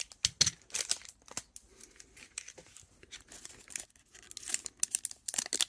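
A trading-card pack wrapper being cut with scissors and worked open by hand: irregular crinkling and crackling with sharp clicks, coming thicker toward the end. The pack is a tough one to get into.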